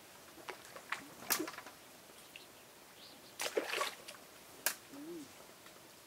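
Small irregular splashes of water and sharp clicks, with the loudest cluster a little after three seconds and a single sharp click near five seconds. Just after that comes a brief low hum that rises and falls.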